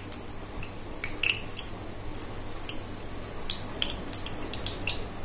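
Steel spatula clinking and scraping lightly against a stainless steel kadai of heating oil: scattered short metallic clicks, some in quick pairs and runs, over a low steady hum.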